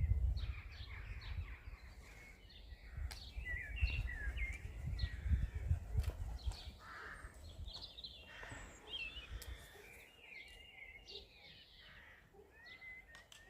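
Small songbirds chirping and warbling in quick, overlapping phrases. Wind rumbles on the microphone, heaviest in the first half.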